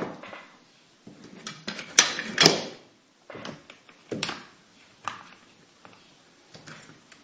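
Plastic toys being handled on a tabletop: scattered clicks and knocks, the loudest two close together about two seconds in, then lighter taps.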